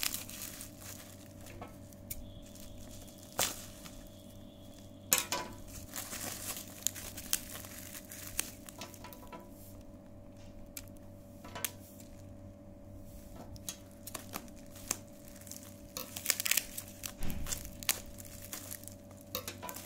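Bubble-wrap packaging being handled by hand, crinkling, with scattered sharp crackles and clicks that grow busier near the end. A steady low hum runs underneath.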